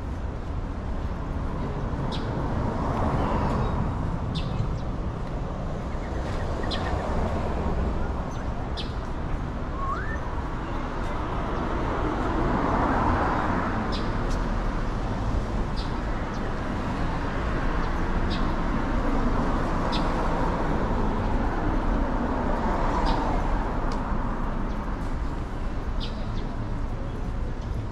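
Street ambience: a steady hum of city traffic, with a bird giving short high chirps every one to two seconds.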